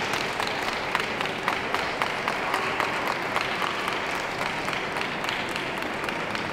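Audience applauding, many hands clapping at once, tailing off near the end.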